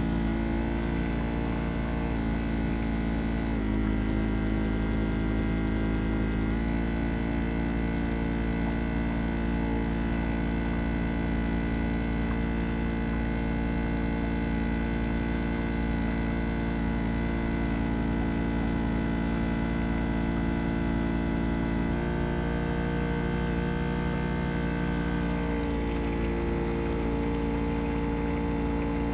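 Boat engine running steadily under way, a low drone whose tone shifts a few times.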